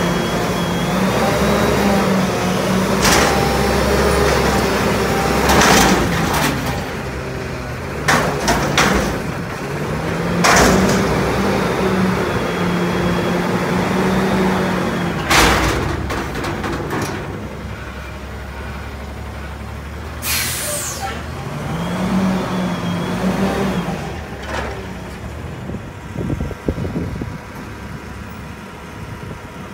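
Autocar front-loader garbage truck with a McNeilus body emptying a steel dumpster of cardboard: the diesel engine revs up and down several times to drive the hydraulic lift arms. A few loud metal bangs and air hisses come as the raised container is jolted and then lowered.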